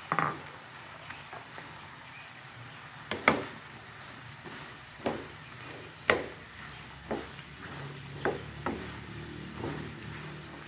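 Wooden spatula stirring squid, bell peppers and onion in a frying pan, knocking and scraping against the pan at irregular moments, about once a second. A faint steady sizzle runs underneath.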